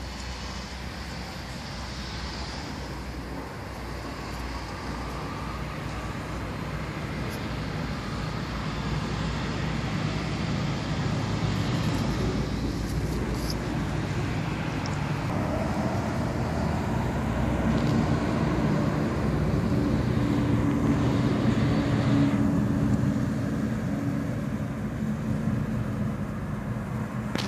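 Traffic rumble with a motor vehicle's engine running, slowly growing louder through the middle and easing off near the end.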